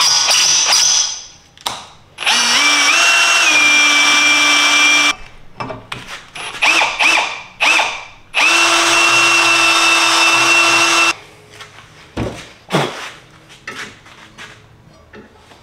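Ridgid cordless drill driving a countersink bit into a steel plate clamped in a vise, cutting countersinks: several runs of a few seconds each with a steady motor whine, separated by short pauses and brief trigger blips. In the last few seconds the drill stops and the steel plate clinks and knocks as it is handled.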